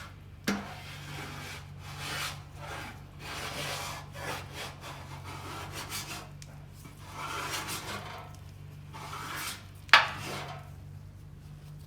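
Irregular rasping strokes of hand work on body filler on a steel bus bumper, likely a block or spreader dragged across the filler, with a sharp click about half a second in and a louder knock near the end.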